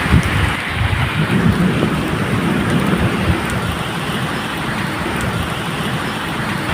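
Steady medium rain falling, with a low rolling rumble of thunder underneath.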